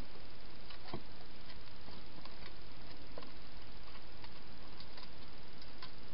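Wild hedgehog feeding at bowls inside a plastic feeding box, making small irregular clicks and crunches, over the steady hiss of a trail camera's microphone.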